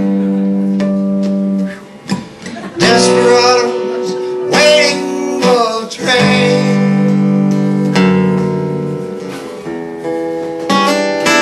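Solo acoustic guitar playing country-folk chords, each struck and left ringing before the next, in an instrumental passage of the song.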